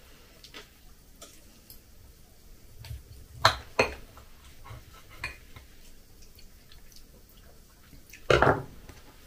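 Knife and fork cutting beef on a glass plate: soft scrapes and light ticks of metal on glass, with two sharper clinks about three and a half seconds in. Near the end comes a short, louder mouth sound as a forkful is taken.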